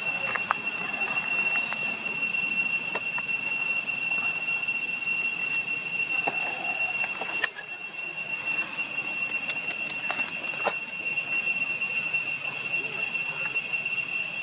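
Cicadas droning in one steady high-pitched whine, with a few faint, brief chirps and clicks over it.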